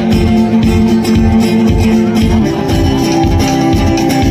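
Background music with a steady beat and strummed guitar.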